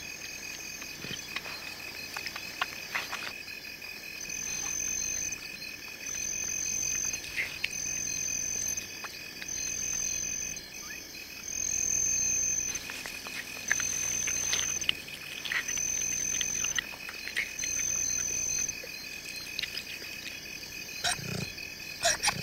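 Night chorus of calling insects: steady high-pitched trills, joined for most of the stretch by a repeated high call, about eight times at roughly a second-and-a-half intervals.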